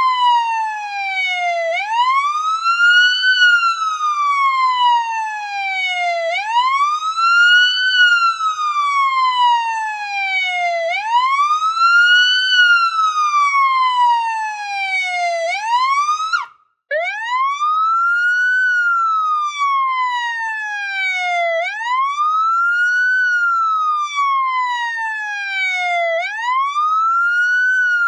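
Police siren wailing: the pitch climbs quickly and then falls slowly, over and over, about every four and a half seconds. About sixteen seconds in it cuts out for a split second and starts a fresh rise.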